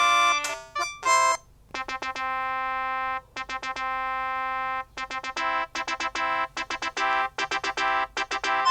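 Samsung SPH-N195 cell phone playing its built-in synthesized ringtones, several notes sounding at once. One tune ends about a second and a half in, and after a short gap a quieter melody of held notes begins, turning into quicker notes.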